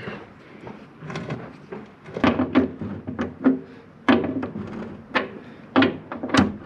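Irregular metallic clanks and knocks, about a dozen over several seconds, as a socket, extension bar and bolt are handled against a steel chequer-plate deck and panel while a bolt is fitted by hand. Each knock is sharp, with a short ringing tail.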